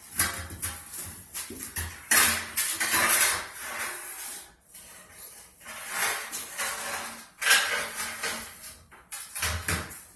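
Large porcelain floor tiles being shifted and set down by hand, scraping across the floor with several short hard knocks.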